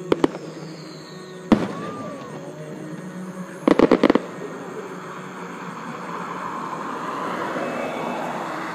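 Aerial fireworks going off: two sharp bangs right at the start, another about a second and a half in, then a fast volley of five or six reports a little before the four-second mark.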